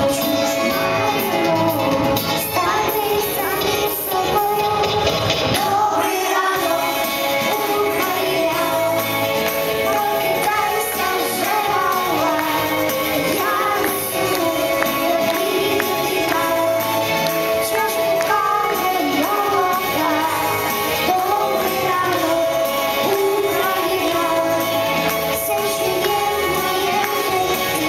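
Pop song backing track playing, with a young girl singing over it into a microphone.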